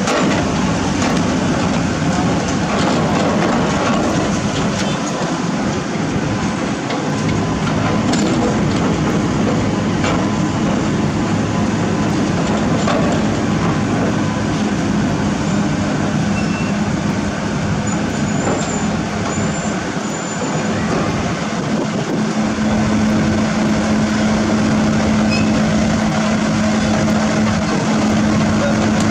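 Heavy diesel construction machinery running steadily, an engine drone with scattered light clanks. The engine note grows stronger about three quarters of the way through.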